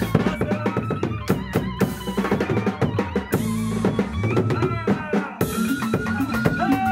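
Live band playing a fast dance groove: a drum kit with quick strokes and rolls over a bass guitar line, with a keyboard melody that bends in pitch and settles on a held note near the end.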